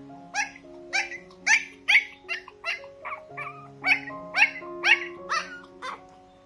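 A young puppy crying in a string of short, high-pitched cries, about two a second, in two runs with a brief pause in the middle, over background music.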